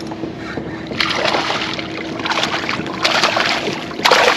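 Water splashing and sloshing beside a kayak in several uneven surges, the loudest near the end.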